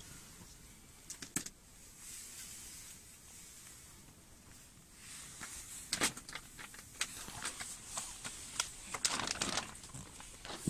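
A thin plastic bag rustling and crinkling as it is handled close by, in a run of quick crisp crackles and clicks that starts about halfway through. Before that there is only a faint hiss and a couple of clicks.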